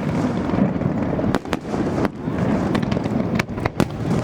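Aerial fireworks going off in quick succession: a continuous low rumble of bursts with sharp, separate bangs cutting through it.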